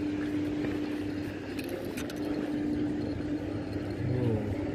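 A steady engine drone held at one low pitch over outdoor noise, with a few light clicks about two seconds in.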